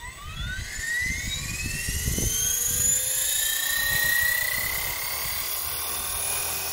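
Small RC stunt helicopter spooling up on the ground: the motor and rotor whine rises steeply in pitch and grows louder over the first two or three seconds, then holds at a steady high pitch as the rotor reaches speed.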